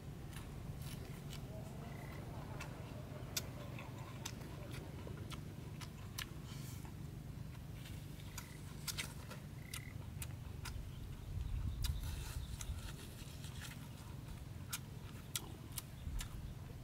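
A person eating close to the microphone: chewing and lip-smacking with many short sharp mouth clicks and crunches, over a low steady rumble.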